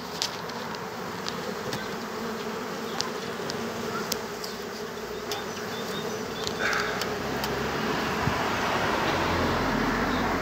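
A crowd of honeybees buzzing steadily around the face of a wooden hive, with scattered faint ticks. The sound grows louder in the second half, and a low rumble joins near the end.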